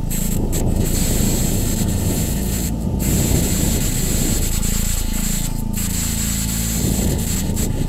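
Electronic ambient soundscape track: a steady low rushing noise drone whose low end sweeps slowly up and down with a phasing effect, twice in the latter half.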